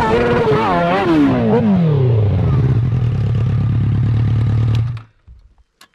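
Engine of a custom Kawasaki KX636 hill-climb bike revving hard and wavering on the climb, then falling in pitch over about a second to a steady low running note as the climb fails and the bike goes over on its side. The engine cuts off suddenly near the end, followed by a single click.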